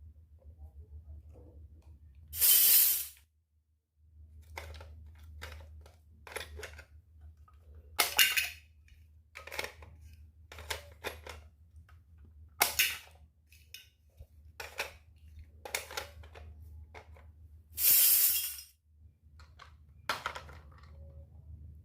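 Miniature toy kitchen pieces being handled: a string of light clicks and knocks, with four louder short bursts of noise spread through it.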